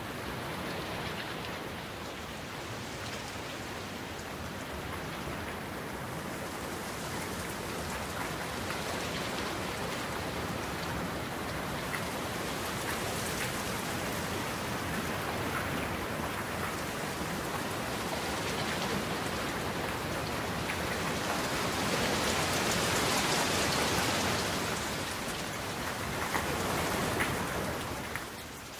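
Steady rain, an even hiss that swells and eases, loudest about three quarters of the way through.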